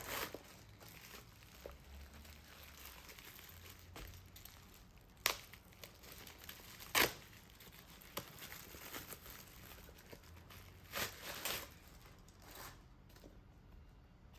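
Packaging being unwrapped by hand: wrapping crinkling and tearing in scattered short bursts with quieter handling between, the loudest a sharp crackle about halfway through.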